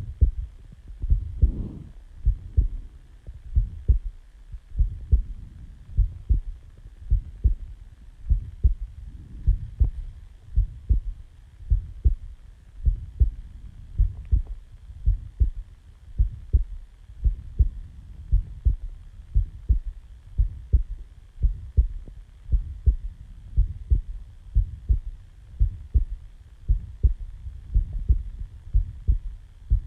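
A person's heartbeat just after waking: a steady lub-dub of low double thumps at about one beat a second.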